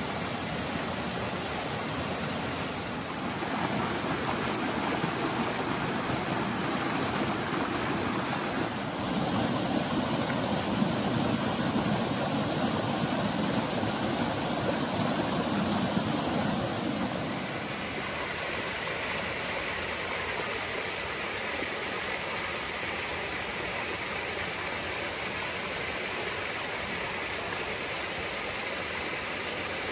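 Steady rushing of a small mountain stream's cascades pouring over and sliding down rock. The tone changes a few times: fuller and louder through the middle, then lighter and hissier from a little past halfway.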